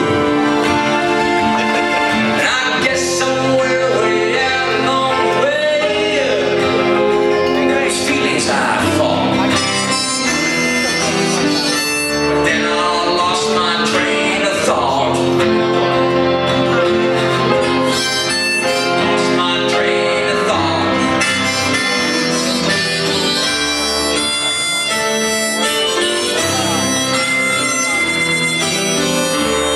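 Live band music led by a harmonica playing held notes that bend in pitch, over acoustic guitar.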